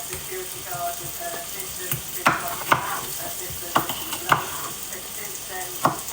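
Food sizzling in a frying pan, with a cooking utensil knocking sharply against the pan several times in the second half.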